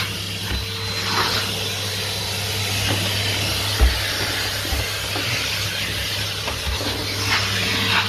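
Numatic Henry XL NVR370-11 tub vacuum cleaner running steadily with a constant hum and rushing airflow as its nozzle works a carpeted stair. A few light knocks come through, one sharper about four seconds in.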